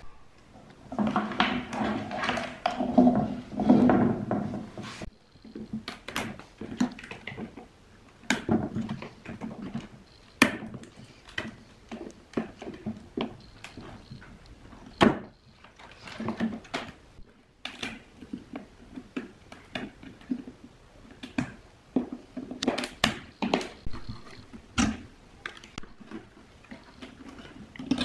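Scattered clicks, knocks and rustling as wires are handled and routed through a hard plastic speaker cabinet, with a louder stretch of scraping and rustling about a second in.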